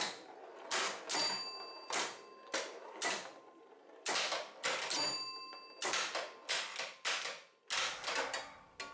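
Bally 4 Queens electromechanical pinball machine in play: an irregular run of sharp mechanical clacks and knocks, with a bell ringing briefly a little over a second in and again around five seconds.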